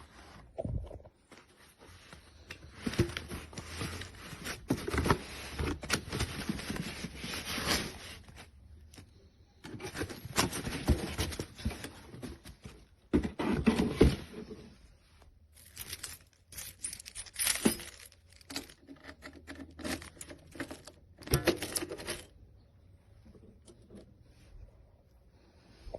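Objects being handled at close range: rustling, scraping and metallic jingling and clicking, in bursts of a few seconds with short quiet gaps between them.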